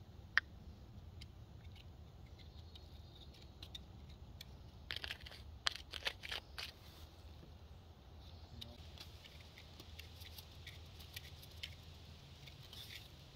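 Light clicks, scrapes and crinkles of things being handled during food preparation, busiest about five to seven seconds in, over a faint low hum.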